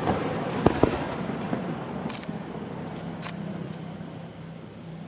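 Aerial firework shells bursting: two sharp bangs close together about a second in, followed by a fading crackle, then two short hisses later on.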